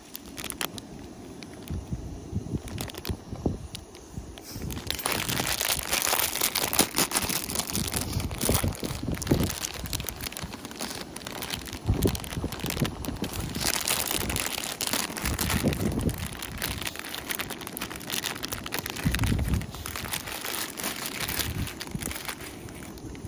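Plastic MAMA vermicelli noodle packet crinkling and rustling as it is handled and opened, growing louder and busier about five seconds in.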